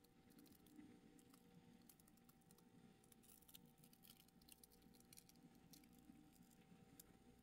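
Near silence: faint, scattered light crackles and ticks over a low steady hum.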